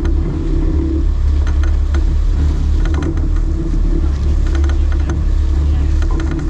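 Steady low rumble of a sportfishing boat's engines running.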